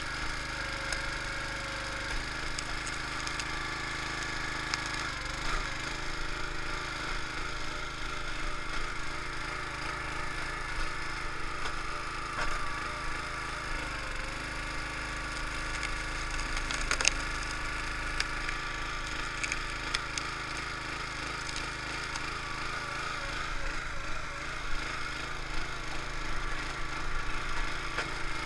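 Small engine of a gas-powered hydraulic log splitter running steadily while the ram splits oak, with wood cracking and splintering. The engine's pitch dips briefly under load a couple of times, and there is one sharp crack just past the middle.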